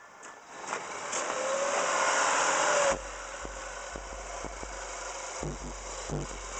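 A loud rush of noise with a faint whistle, rising and then cutting off abruptly about three seconds in. After it, a Toyota 3.0-litre four-cam V6 idles steadily with a few handling clicks. Near the end, the low thump of bass music from the subwoofers starts.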